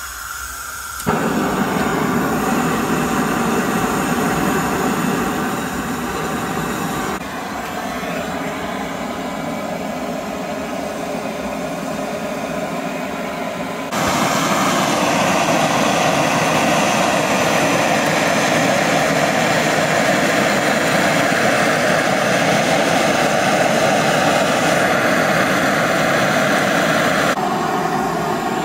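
Handheld butane blowtorch burning with a steady rushing hiss as its flame is played over raw pork leg skin to singe it. The flame starts about a second in and gets louder about halfway through.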